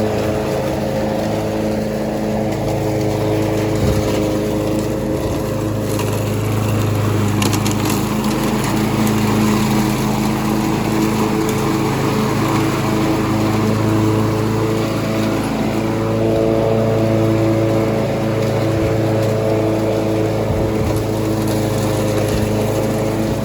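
Gas lawn mower engine running steadily at mowing speed, its note shifting slightly a couple of times. The owner calls the mower on its last leg.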